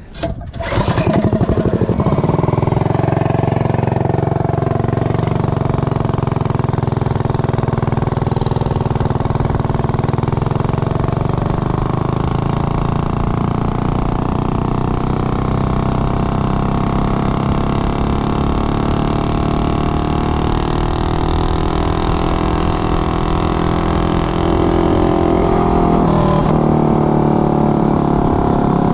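Tillotson 212 single-cylinder minibike engine running at full throttle on a top-speed run. Its pitch climbs steadily as the bike gathers speed over the first ten seconds or so, then holds near its top revs. It is geared with a 15-tooth centrifugal clutch and a 70-tooth rear sprocket.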